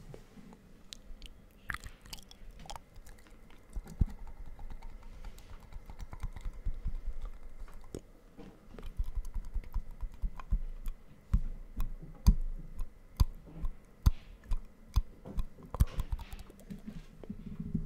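Close-up ASMR mouth sounds into a microphone: wet tongue and lip clicks, scattered at first and coming about twice a second in the second half.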